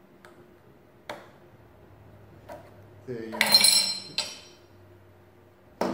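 Metal clicks and knocks from the case of a 1909 Dalton adding machine as it is worked by hand while stuck: a couple of sharp clicks, a longer metallic clatter about three seconds in, and a sharp knock near the end.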